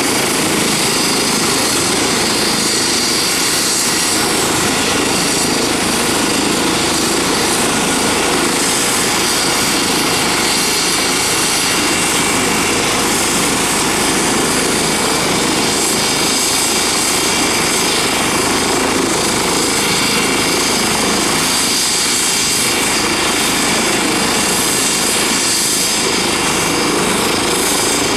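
Eurocopter EC135 helicopter running on the ground with its main rotor turning, ahead of take-off: a steady, loud turbine whine with high tones over rotor noise, unchanging throughout.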